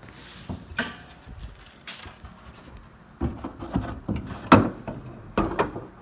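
The hood of a 2005 Toyota Prius being unlatched and lifted open: a few light clicks, then a run of metallic clunks and knocks from about three seconds in, the loudest about four and a half seconds in.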